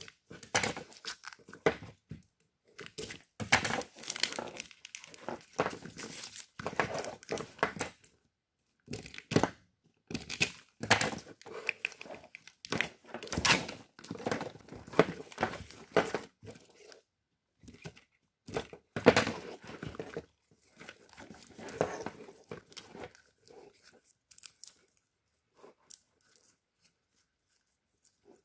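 Old wrapping tape being torn and peeled off an AW11 MR2 chassis wiring harness, with crinkling and rustling as the wires are handled, in irregular bursts. It thins out to a few faint handling noises in the last few seconds.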